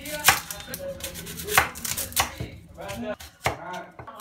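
Chef's knife chopping on a bamboo cutting board: four sharp knocks of the blade on the wood at an uneven pace, the first the loudest.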